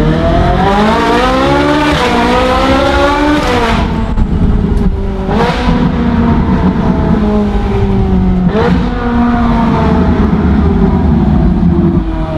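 Ferrari engine heard from inside the cabin, accelerating hard with its pitch climbing, cut by two quick paddle-shift upshifts about four and five and a half seconds in, each with a sharp crack. Then the revs fall away as the car slows, with a sharp downshift blip about eight and a half seconds in.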